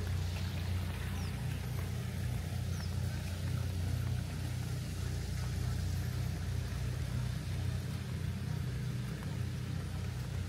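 Steady low rumble, with a few faint short high chirps in the first few seconds.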